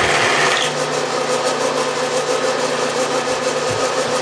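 Bridgeport milling machine running a 3/4-inch high-speed steel end mill at about 1115 RPM, cutting a slot as the table feeds across: a steady motor and spindle hum with a rough cutting sound. A higher cutting whine drops away less than a second in.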